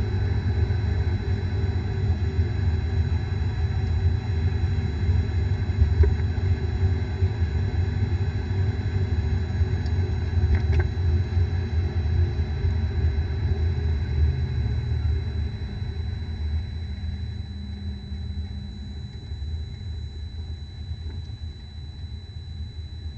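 Car on the move with a low rumbling drone, the noise of a bad bearing. The rumble eases off from about two-thirds of the way through.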